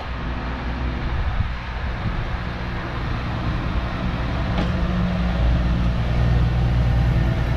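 Class 143 Pacer diesel railbus running in along the platform: a steady low diesel engine drone that grows louder as the leading car draws level and passes, with a faint click about halfway through.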